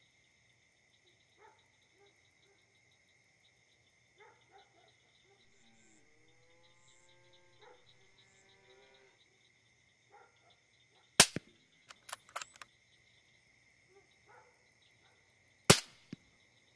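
Two rifle shots about four and a half seconds apart, the first followed by a brief clatter of smaller clicks. Steady chirring of crickets underneath.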